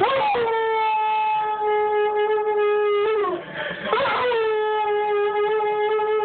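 Rottweiler–boxer mix dog howling: two long, steady howls, each sliding up at the start and dropping in pitch as it ends, with a short break about three seconds in.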